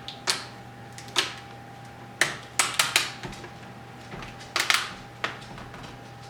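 Plastic laptop screen bezel being pressed back onto the display lid, its clips snapping into place in a string of sharp irregular clicks, several in quick succession near the middle and again a little later.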